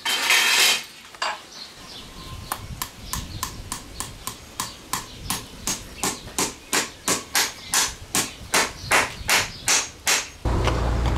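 Farrier's hammer striking a steel horseshoe on a horse's hoof: a run of even metallic taps, about three a second, growing louder. A short burst of noise comes before the taps, and a steady low rumble takes over near the end.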